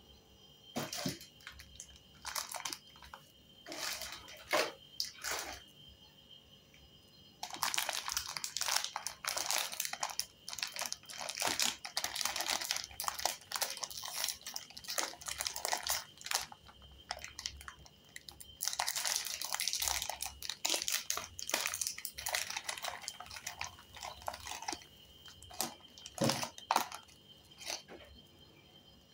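Plastic wrappers of Parle-G biscuit packs crinkling and rustling as hands handle and open them, with two long stretches of dense crackling and a few short rustles and taps before and after.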